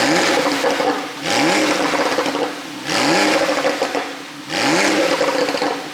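2017 Porsche 911 Carrera 4S twin-turbo flat-six revved in four quick blips, each rising sharply in pitch and then falling off into popping and crackling from the exhaust. The exhaust flaps are open, and the pops come from an ECU pop-and-crackle tune.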